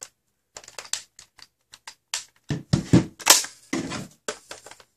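Irregular plastic clicks and clatter of a Nerf Rival Knockout blaster being handled and reloaded with half darts, with a few louder clacks about three seconds in.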